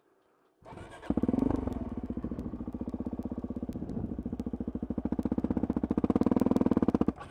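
Suzuki DR-Z400's single-cylinder four-stroke engine starting about a second in, catching almost at once, then running with an even, fast pulse that grows a little louder before cutting off suddenly near the end.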